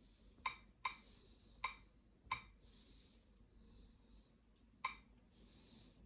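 A handful of short, sharp clicks from a computer's mouse or keys, five of them at irregular spacing, with faint room hiss between.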